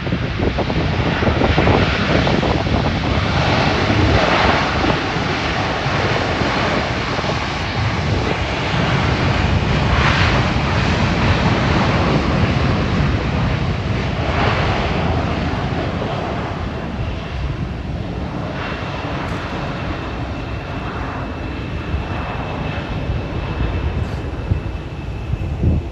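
Jet engines of a Boeing 787-9 airliner running at high power, a loud steady roar and rush of noise that slowly eases in the second half, with a faint steady high whine coming in later on.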